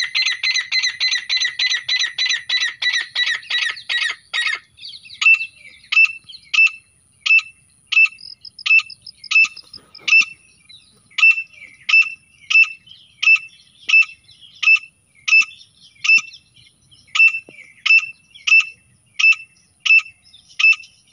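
Grey francolin calls: a fast run of rapid notes that stops about four seconds in, then single sharp notes repeating evenly, about one and a half a second.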